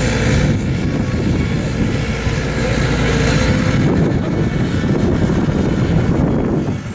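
Garden pulling tractor engine running with a loud, uneven low rumble; the higher hiss over it drops away about four seconds in.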